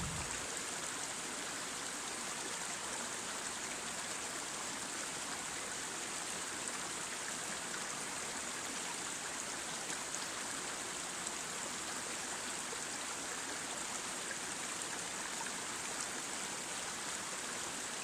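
Shallow stream running over rocks and stones: a steady, even rush of water.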